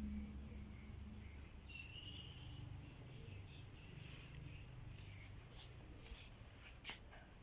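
Faint outdoor insect chorus: a steady high-pitched trill that holds unchanged, with a few short faint chirps in the middle and a few sharp clicks near the end.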